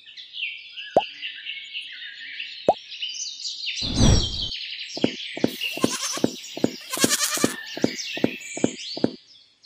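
Chirping birdsong ambience with added plop sound effects: two plops, a louder low thud about four seconds in, then a quick run of clicks, about four a second, for the last four seconds.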